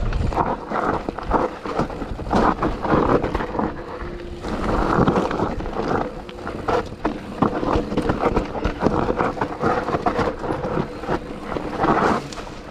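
Mountain bike ridden downhill over rough singletrack: tyres rolling over dirt, roots and rocks, with a constant clatter of knocks and rattles from the bike, and wind rushing over the microphone.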